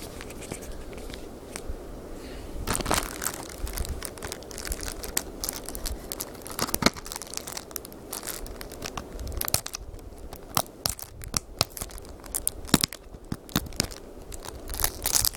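A cardboard box of chewing gum being worked open by hand: irregular crinkling and tearing of its packaging, with scattered sharp crackles and a few louder snaps.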